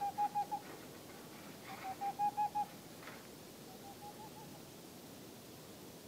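An owl hooting: three quick runs of short, clear hoots, about seven a second, each run rising slightly in pitch and the last one fainter.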